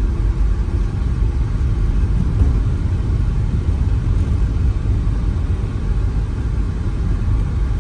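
Road and engine noise inside a moving Hyundai's cabin, steady and mostly low in pitch.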